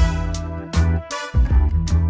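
Upbeat instrumental background music with a steady drum beat and a bass line.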